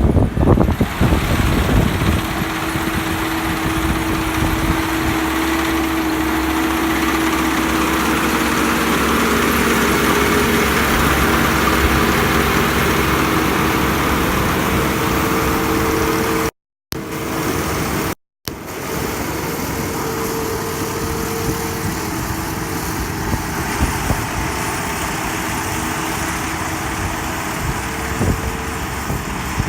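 Kubota 128-horsepower six-row combine harvester running with a steady engine and machinery drone and a steady whine over it. The sound cuts out twice briefly past the middle.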